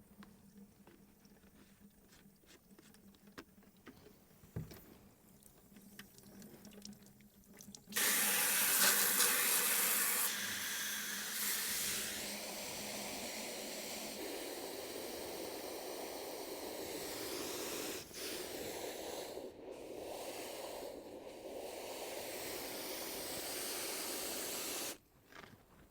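A few faint clicks, then a steady hissing spray that starts abruptly and is loudest in its first couple of seconds, running until it cuts off sharply near the end.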